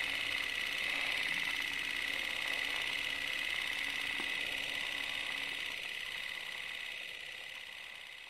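Film projector running, a steady mechanical whir and rattle that fades out toward the end.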